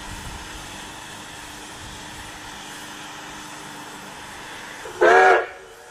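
One short blast of the steam whistle on Baldwin-built K-36 narrow-gauge steam locomotive No. 482, about five seconds in, over a steady background hiss.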